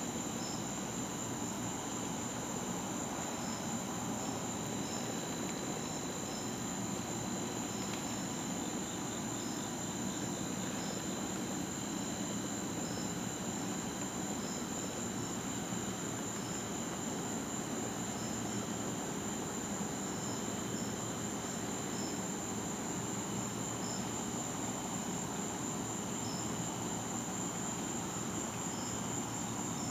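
Nighttime chorus of crickets and other insects: a steady high-pitched trill, with scattered short chirps over it and a low steady hum underneath.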